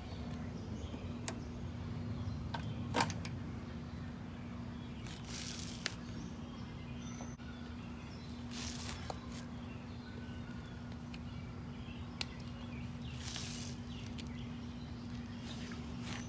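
Quiet outdoor background: a steady low hum with scattered faint clicks and a few short hissing sounds, likely someone handling the mower and fuel. No engine is running.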